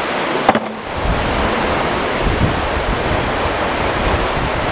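Fast-flowing river water rushing steadily, with wind rumbling on the microphone from about a second in. A single short sharp click about half a second in.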